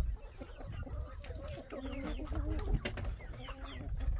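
Chickens clucking, several birds calling over one another in short, wavering clucks.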